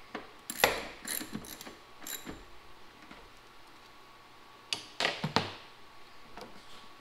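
Metal hand tools being handled: a small socket ratchet and parts clinking, a few sharp metallic clicks scattered through, with a cluster of clicks about five seconds in.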